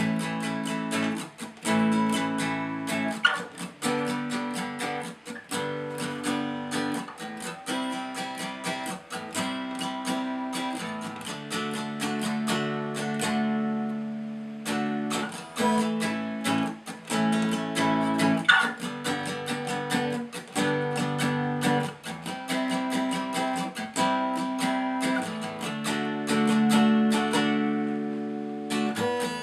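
A guitar being strummed: a steady run of struck chords that change every second or two.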